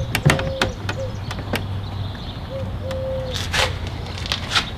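Car door speaker being test-fitted into its trimmed door mount: a series of sharp knocks and clicks as it is pushed and worked into place, about six over the few seconds, over a low steady hum.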